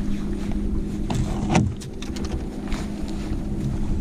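Bow-mounted electric trolling motor humming steadily on a bass boat, with low wind rumble on the microphone. Short knocks on the boat deck come about a second in, the loudest about a second and a half in.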